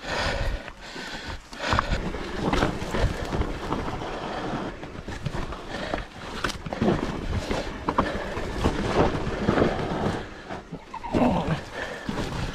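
Mountain bike clattering and rattling over a rough, rocky singletrack, with irregular knocks and a steady rushing noise.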